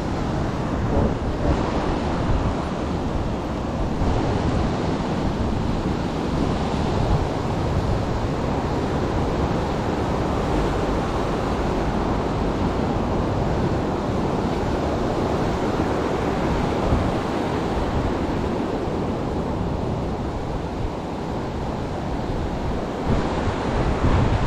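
Steady rush of sea surf and wind, with wind buffeting the microphone.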